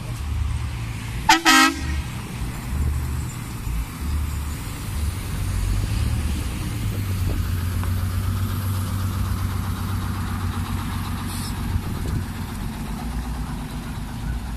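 Sultana Imperial coach sounding its horn in a short double blast, then its engine running with a steady low rumble that grows a little louder about five seconds in as the bus pulls in.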